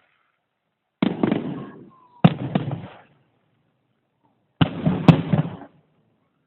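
Fireworks going off in three volleys, about a second in, just after two seconds and past four and a half seconds. Each volley opens with a sharp bang and crackles on with quick bangs for about a second.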